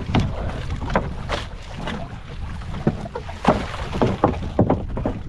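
Irregular sharp slaps and knocks in a small fishing boat as the net's catch is handled, over a steady low rumble.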